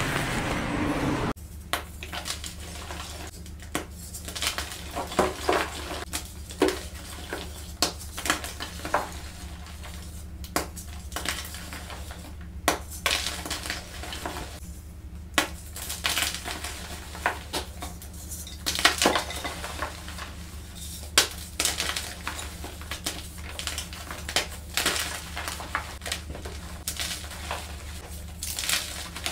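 Gym chalk being crushed and crumbled by hand. It starts as a continuous powdery crunching, and after about a second gives way to separate sharp crunches at irregular intervals, over a steady low hum.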